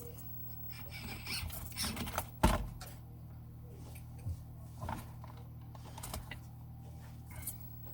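Small RC crawler clattering, with scattered knocks and scrapes over a steady low hum; the loudest knock comes about two and a half seconds in.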